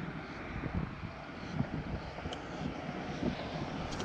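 Steady rumble and hiss of traffic on a busy highway, with uneven low buffeting underneath.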